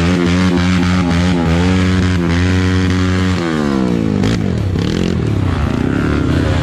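A vehicle engine running at steady revs, then the revs drop about three and a half seconds in and rise and fall unevenly after.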